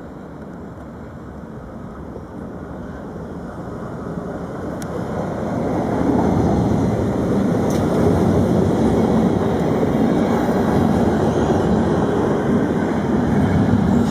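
Dutch NS ICM "Koploper" electric intercity train running past close alongside the platform: an even rumble of wheels on rail that grows louder over the first few seconds and then stays loud.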